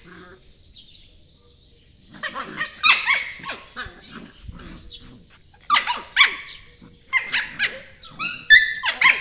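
Puppies yelping and yipping as they tussle, in short clusters of high-pitched calls that bend in pitch. The first couple of seconds are quiet, then bursts of yips come every second or two.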